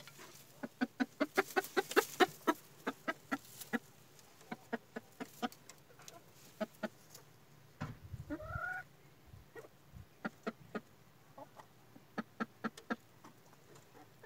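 Domestic hen clucking in quick runs of short clucks, about five a second at first, then more scattered, with one longer, rising call about eight seconds in.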